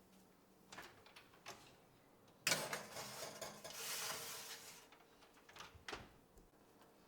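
Cookware being handled in a kitchen: a few light clicks, then a sudden scraping slide lasting about two seconds, and a sharp knock near the end.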